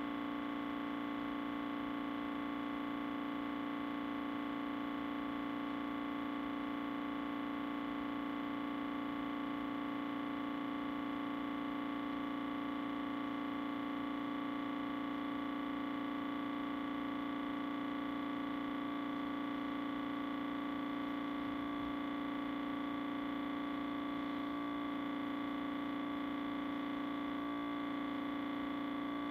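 Audio feedback held as a steady drone: many tones sounding at once without change, the strongest a low hum-like tone with a higher ringing tone above it.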